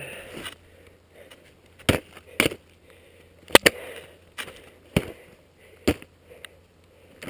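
Skis and poles knocking as a skier shuffles through deep, heavy snow: about six sharp clicks and knocks at irregular intervals, starting about two seconds in, over a faint crunch of snow.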